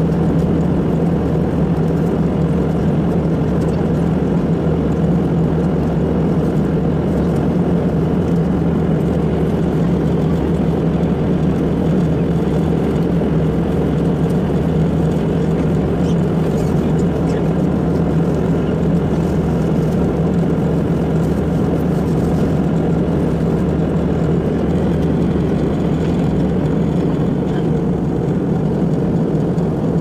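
Jet airliner in flight heard from inside the cabin: a loud, steady drone of engine and air noise with a constant low hum, unchanging throughout.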